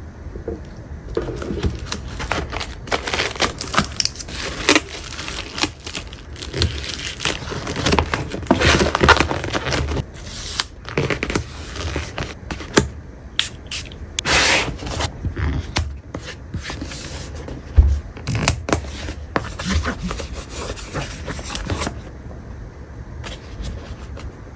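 Small stationery items being handled and packed: irregular scraping, rubbing and rustling, with a few sharp clicks and knocks.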